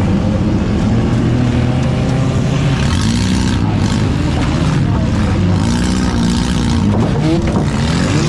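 Compact demolition derby car's engine running loud, heard from inside the stripped cabin, revving up and down several times as the car manoeuvres.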